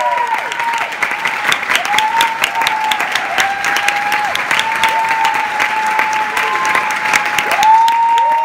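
Audience applauding, with claps close by, over which a high, steady tone is held for a second or two at a time, several times over.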